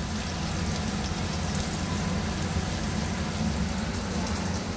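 Pieces of goat udder deep-frying in a pot of oil: a steady sizzle with fine crackles. A steady low rumble runs underneath and is the loudest part.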